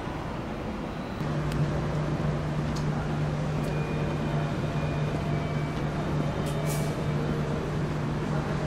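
Electric freight locomotive running with a steady low hum that sets in about a second in over a constant rumble. A few faint clicks and a brief hiss come about three-quarters of the way through.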